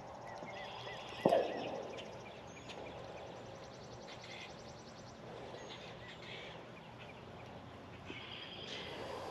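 Birds calling and trilling, with rapid high trills and short chirps repeating, over a faint steady background. A single loud knock sounds about a second in.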